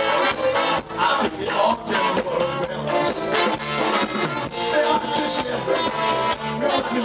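Live band playing an upbeat pop song with a steady drum beat and bass, loud and unbroken.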